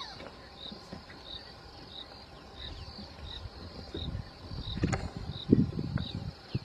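Insects calling: a steady high buzz with a short chirp repeating about one and a half times a second. Several low thumps and rumbles come in near the end, the loudest about five and a half seconds in.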